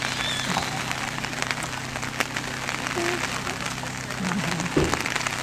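Outdoor ambient noise: a steady hiss with a low hum underneath, and faint distant voices a few times.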